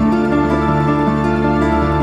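Background music: held, sustained notes over a steady low bass, changing chords about every half second to a second.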